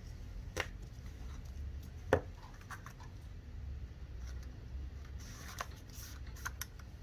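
Cardboard packaging being handled during an unboxing: a few sharp clicks and taps, the loudest about two seconds in, with a cluster of lighter ticks near the end.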